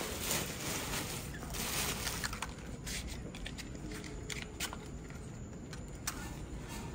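Newspaper and dry leaves rustling and crackling as kindling catches fire in a clay fire pit. A dense papery hiss for the first couple of seconds, then scattered sharp crackles.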